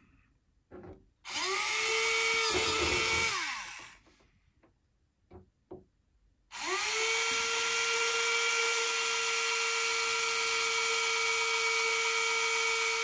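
Tamiya electric hand drill with a 2.0 mm bit drilling porthole holes in a plastic model ship hull. Its small motor whines up to a steady pitch, runs for about two seconds and winds down. After a few light clicks it starts again about six seconds in and runs steadily.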